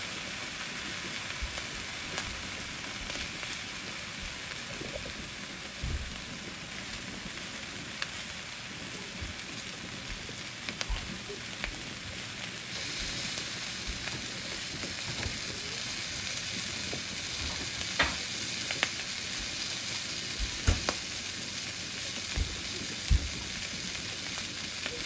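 Sausages frying in a nonstick pan, the cooking juices boiled off so they sizzle in their own fat: a steady hiss with scattered small pops, and a few sharper spits in the second half.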